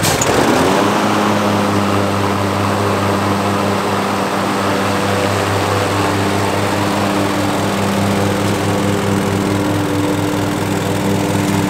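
Cub Cadet ZT1 50 zero-turn mower's engine running steadily as the mower drives off across the lawn; its pitch dips briefly right at the start, then holds even.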